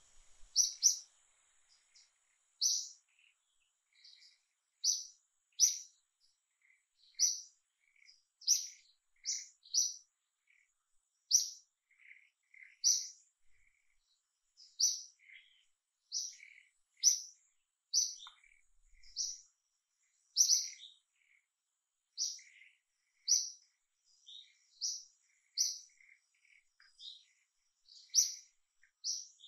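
Small birds chirping: short, high chirps repeated about once a second, with fainter lower notes in between.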